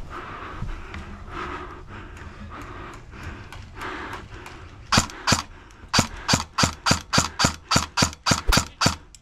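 Heavy breathing through a costume mask, a short hiss roughly every second. About five seconds in, an airsoft rifle fires two shots, then a rapid string of about a dozen sharp single shots at roughly five a second.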